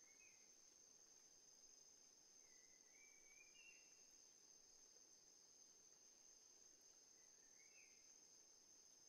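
Near silence: a very faint, steady, high insect drone like crickets, with three short rising bird-like chirps, near the start, about three seconds in, and near the end.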